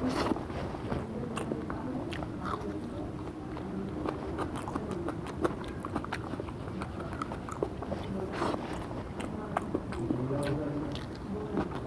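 Close-up mouth sounds of a person chewing and biting mutton biryani, with many small irregular wet clicks and smacks.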